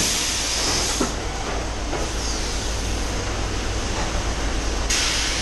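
Robotic palletizing line for 5-litre water bottles running: a steady machinery hum. A high hiss of compressed air stops about a second in, and another starts near the end.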